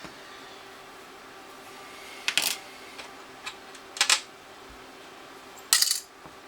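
Sharp plastic clicks from an iPod 3rd generation's old case clips as it is handled: three loud clicks spaced more than a second apart, with a few faint ticks between them.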